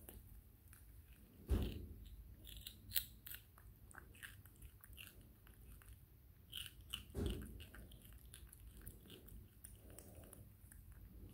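Baby monkey biting and chewing a raw cucumber: scattered small wet crunches, with two louder thumps about a second and a half in and about seven seconds in.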